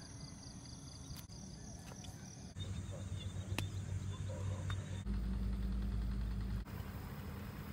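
Rural outdoor ambience that changes abruptly several times. A fast, regular, high insect chirping fills the first couple of seconds. After that comes a low steady rumble, with one sharp click about three and a half seconds in.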